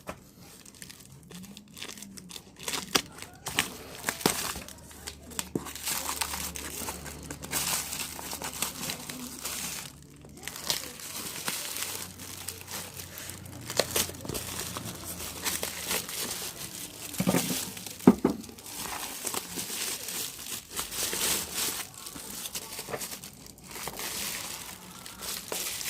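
Packaging being handled and pulled open: irregular crinkling and tearing, with a couple of sharper knocks about two-thirds of the way through.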